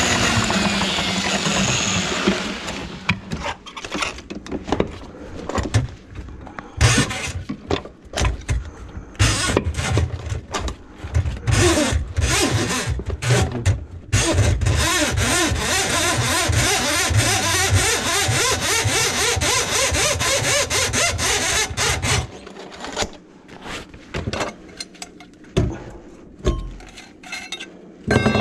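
Handheld drum drain auger running, its motor whirring and the cable spinning and rattling in a grease-clogged kitchen drain line, starting and stopping several times with a long steady run in the middle. Near the end, clanks and knocks of metal pipe parts being handled.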